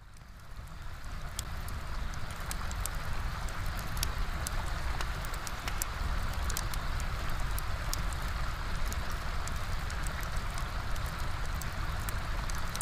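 Colored pencil shading on paper: a steady scratchy hiss with a low rumble and scattered small ticks, fading in over the first second or two.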